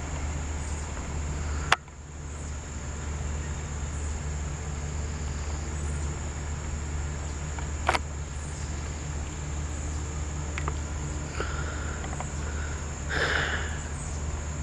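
Bees from a hive disturbed by a thrown brick, buzzing as a steady low drone, with a steady high insect trill over it. Two sharp clicks break in, about two seconds in and near the middle.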